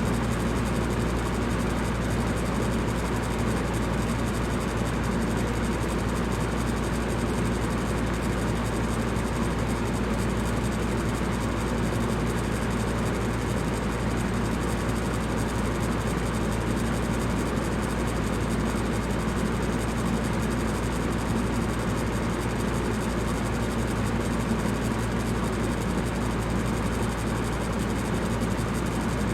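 Electric fan running steadily: a continuous whooshing hum of moving air with a low, even drone, no change in speed.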